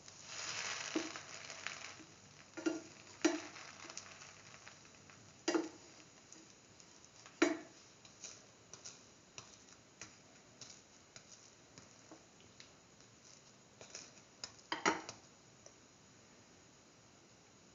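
Bread sandwich frying in oil in a pan, with a burst of sizzling in the first two seconds. Then a light crackle, broken by about five sharp knocks and many small ticks.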